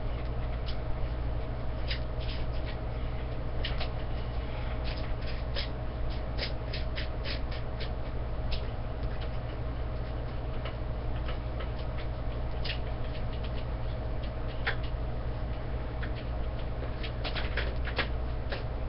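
Light clicks and taps of plastic antenna parts being handled and fitted together, in irregular clusters, over a steady low hum.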